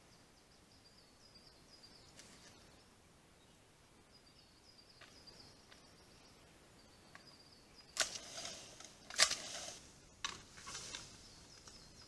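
Brown bear scraping and knocking at the wooden board that holds the mirror: several sharp knocks and rasping scrapes in the second half, the loudest about three-quarters of the way through, over a faint high chirping.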